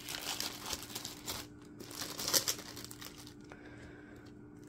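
Plastic packaging crinkling and rustling as small diamond-painting tools and baggies are handled, in uneven bursts for about three and a half seconds, then quieter.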